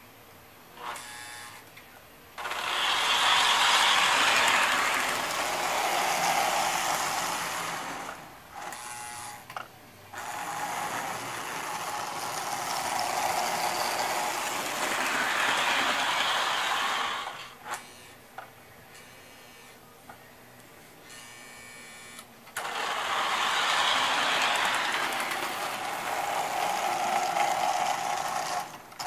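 Lionel 2321 Lackawanna Train Master O-gauge diesel running on three-rail track: the whir and rattle of its electric motors and wheels. It comes and goes in three long loud stretches with quieter gaps between.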